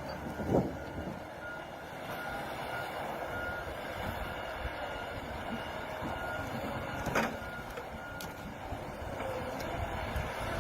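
Reversing alarm on a heavy logging machine beeping at a steady rate over its diesel engine running. Two sharp knocks stand out, about half a second and about seven seconds in.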